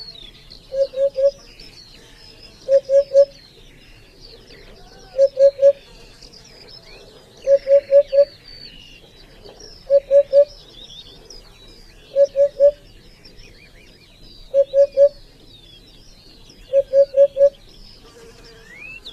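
A bird calling with short, low hooting notes in quick groups of three or four, each group repeated about every two seconds. Fainter twittering from other birds runs underneath.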